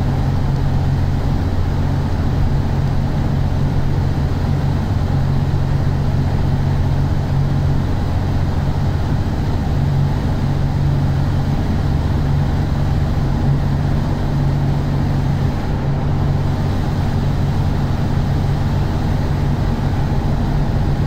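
Steady low drone of engine and road noise inside a vehicle cruising at highway speed.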